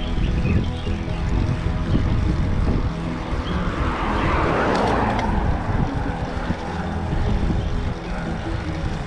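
Background music over the ride, with a rushing noise that swells and fades about four to five seconds in.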